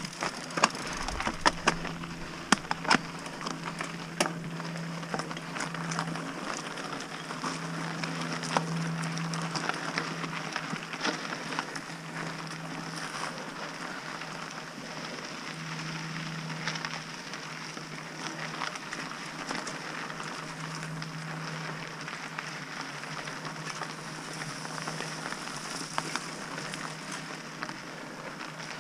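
Mountain bike riding on dry dirt singletrack: knobby tyres crunching over loose soil, leaves and twigs, with sharp rattles and knocks from the bike over bumps during the first few seconds.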